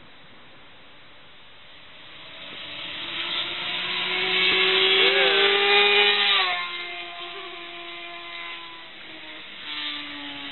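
A 600cc inline-four sport bike engine approaches at high revs, passes close by about six seconds in with a sudden drop in pitch, then fades away. Near the end the engine note rises briefly again.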